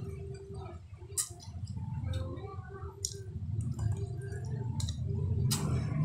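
A person eating by hand: scattered wet clicks and lip smacks while chewing, with a sharp one about a second in and the loudest near the end, over a low steady hum.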